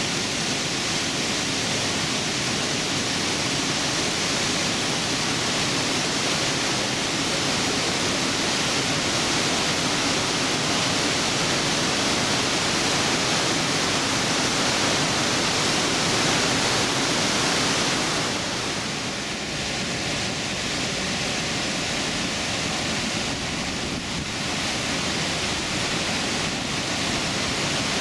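Glacier-fed waterfall plunging through a narrow rock gorge: a loud, steady rush of falling water that eases slightly about two-thirds of the way through.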